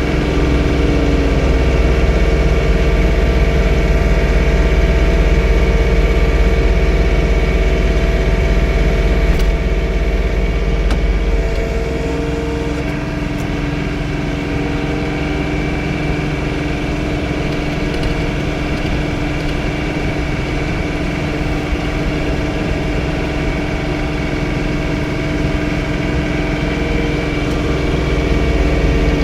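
John Deere 3046R compact diesel tractor running under load while snow blowing. A steady whine drops in pitch about two seconds in and climbs back about twelve seconds in, and the deep rumble eases after that.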